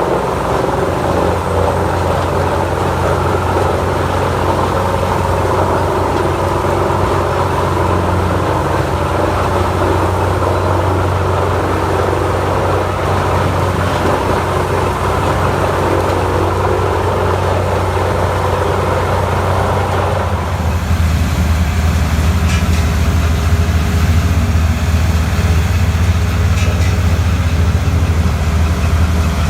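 Heavy industrial wood grinder running steadily: a deep engine drone under a noisy rumble. About two-thirds of the way in the sound shifts abruptly, the drone growing louder and the rumble thinner.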